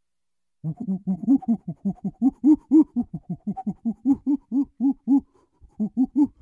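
A monkey giving a long, fast run of short, low hooting calls, about four or five a second, pausing briefly, then three more near the end.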